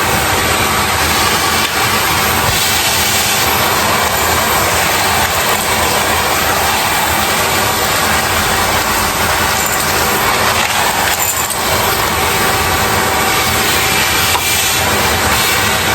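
Numatic NVH180 tub vacuum cleaner running steadily at full suction while its straight floor head is pushed back and forth over carpet, a rough scraping hiss over the motor's drone. The suction release valve is open.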